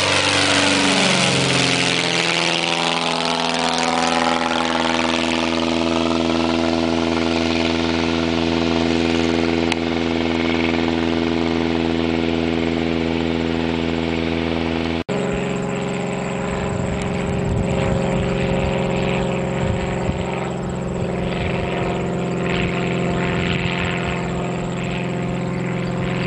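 A small propeller airplane's engine passes low overhead, its pitch dropping as it goes by, then drones steadily. About halfway there is a sudden break, after which the engine drone goes on rougher and fluttering.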